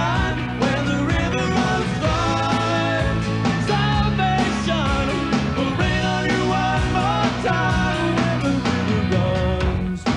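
Background rock song with singing, a steady beat and bass.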